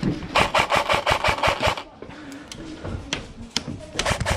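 Airsoft gun firing on full auto: a burst of rapid shots lasting about a second and a half, a pause with a couple of single clicks, then another burst near the end.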